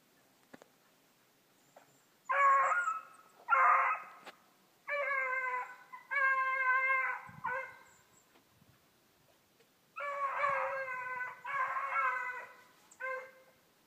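Young beagle hounds baying in the brush, a string of drawn-out, pitched calls that begins about two seconds in, pauses briefly in the middle and starts up again. This is the cry of hounds giving tongue while running a rabbit.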